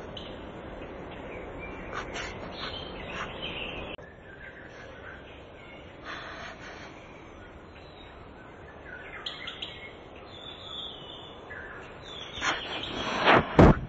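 Small birds chirping on and off over a steady outdoor hum. Near the end, loud rubbing and knocking on the camera's microphone as the cat's face presses against it.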